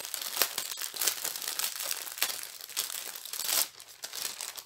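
Plastic wrapping crinkling as it is handled, in irregular crackles with a louder burst about three and a half seconds in.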